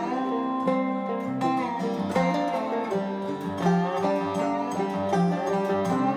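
Background music: plucked acoustic strings, banjo-like, playing a bright, steady tune.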